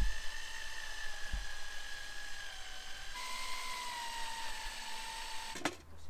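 Power drill running at a steady high speed, its whine stepping up in pitch about three seconds in and cutting off with a sharp knock near the end.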